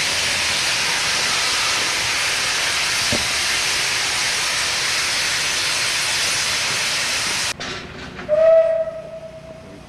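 Steam locomotive No 12 blowing off steam at its safety valves in a loud steady hiss, which cuts off sharply about two-thirds of the way through. Then the locomotive's whistle sounds one short steady note.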